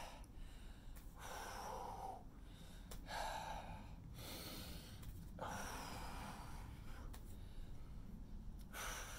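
A man breathing hard during an exercise: a series of deliberate, audible breaths in and out through the mouth, one every second or two.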